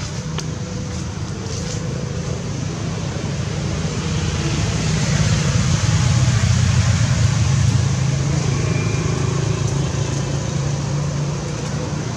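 A steady low rumble with a hiss over it, growing louder through the middle and easing off toward the end.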